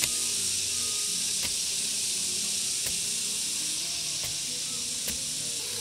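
Hand hoe chopping into garden soil, one stroke about every second and a half, over a steady high hiss.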